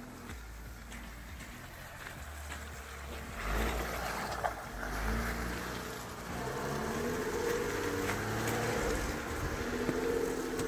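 Jeep Wrangler 4x4 driving slowly through mud, its engine note rising and falling with the throttle. Around three and a half seconds in there is a surge of rough, splashing noise as the tyres push through the ruts and puddles.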